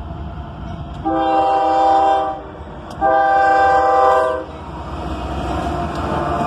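Lead diesel locomotive's air horn, a GE ES40DC, sounds two chord blasts about half a second apart. The trailing locomotives then rumble louder and louder as they pass through the crossing.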